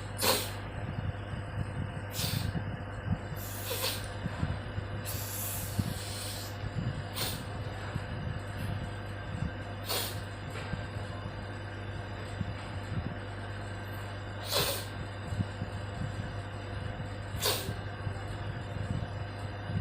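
A woman blowing her nose into her hand, without a tissue: about eight short, sharp nasal blasts a few seconds apart, one of them longer at around five to six seconds in. A steady low hum runs underneath.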